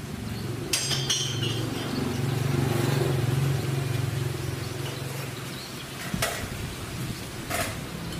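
Metal parts and hand tools clinking as they are handled, a couple of sharp clinks about a second in and two more near the end, over a steady low engine hum.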